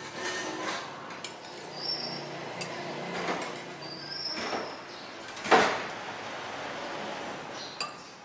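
Metal spoon clinking and scraping against ceramic bowls while someone eats, a scatter of small clicks and knocks with a few brief high squeaks. One louder burst of noise comes about five and a half seconds in.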